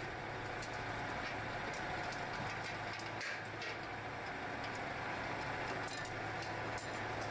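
Steady hum of running workshop machinery with a low drone, with scattered light clicks and clinks from aluminium cooker bodies and small metal parts being handled.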